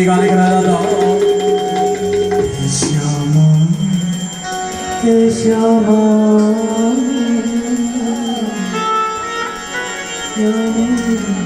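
Music with singing: long held notes that slide between pitches over instrumental accompaniment.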